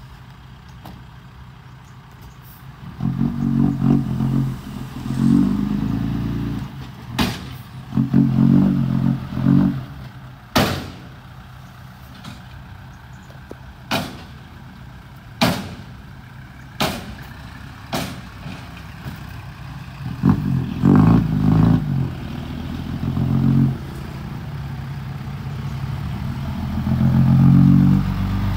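Hino J07C straight-six diesel of a dump truck idling and revving hard in repeated bursts. Several sharp knocks come in the quieter stretch between the revs.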